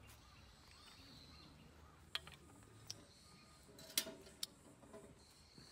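A few light metallic clinks and taps as metal tongs and the stove's stainless grill grate are handled, the loudest about four seconds in with a short ring after it.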